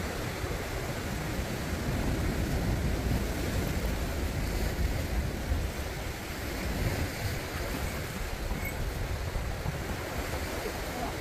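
Sea waves breaking and washing against shoreline rocks, a steady surf noise with wind rumbling on the microphone.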